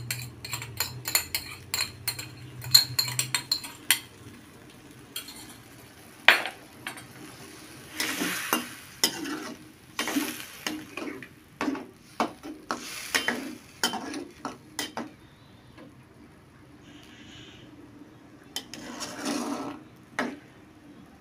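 Metal spatula stirring and scraping through simmering tauco sauce in a wok. There are quick light metallic clinks over the first few seconds, then a series of separate scraping strokes against the pan.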